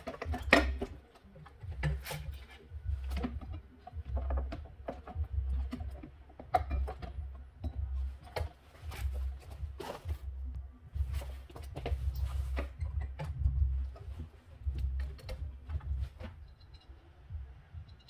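Irregular knocks, clicks and metal clinks of hand work on a refrigerator compressor and its fittings in the compressor compartment, over a low rumble that comes and goes.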